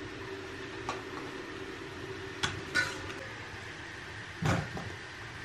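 A few sharp clinks and knocks of stainless steel pots and bowls being handled, the loudest a duller knock near the end, over a steady low hum.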